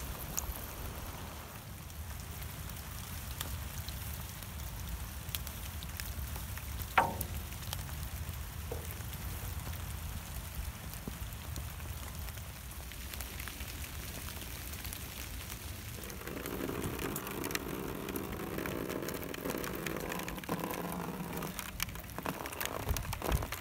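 Steady rain falling onto a small garden pond, drops striking the water, with one short sharp sound about seven seconds in. The sound grows fuller about two-thirds of the way through.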